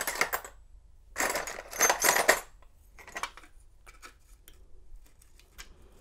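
Small metal lock parts and tools clinking and rattling as a padlock's brass cylinder is handled over a plastic parts tray: a brief clatter at the start, a dense run of clinks about a second in, then sparse light ticks.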